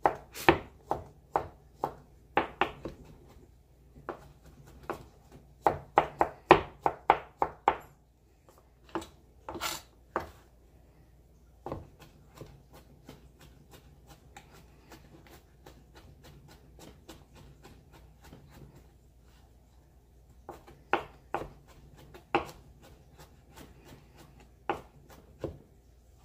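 Chef's knife dicing mushroom stems on a plastic cutting board: quick runs of sharp knocks as the blade strikes the board, with scattered single strokes and pauses in the middle stretch.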